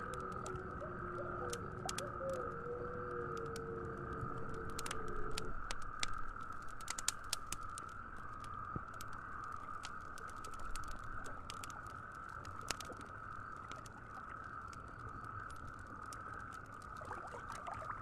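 Wood campfire crackling, with irregular sharp pops that are busiest in the middle, over a steady high hiss and a low wash. A pair of low held tones sound at the start and stop about five seconds in.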